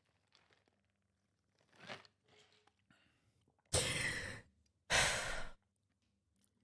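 Two heavy sighing breaths about a second apart, near the middle, after a faint breath about two seconds in.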